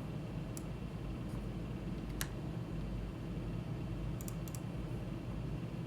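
Scattered computer mouse and keyboard clicks, with a quick cluster of clicks about four seconds in, over a steady low hum.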